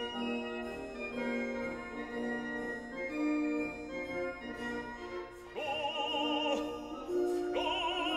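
Classical music with sustained, organ-like chords. About five and a half seconds in, an operatic singing voice with a wide vibrato comes in over them.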